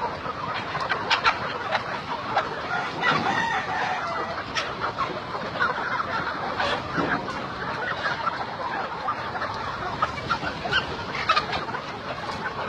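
A flock of chickens clucking, with many short calls overlapping and a rooster crowing.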